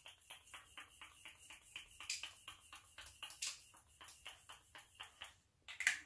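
A quick, even run of light tapping strokes, about five a second, stopping about five seconds in, followed by a short brighter rustle near the end.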